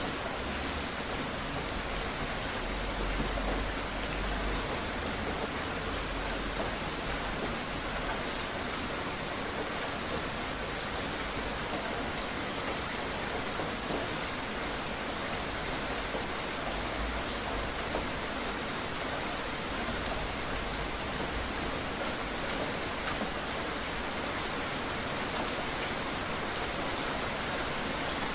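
Steady rain, a dense even hiss of falling rain and drops on surfaces, with a faint low rumble underneath.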